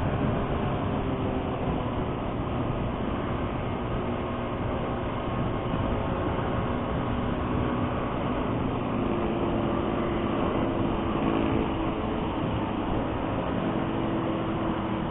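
Vehicle engine running steadily under way on a highway, mixed with road noise; a stronger engine note comes in about two-thirds of the way through.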